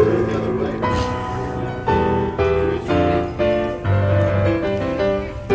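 Gentle piano music, a melody of held notes changing about twice a second.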